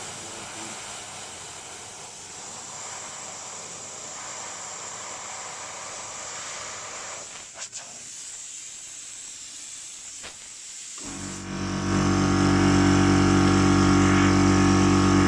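Compressed air hissing steadily out of an air line as the tank pressure is drained; about 11 seconds in, the 100-litre air compressor cuts in on the low pressure and runs loudly and steadily, the door of its soundproof box open.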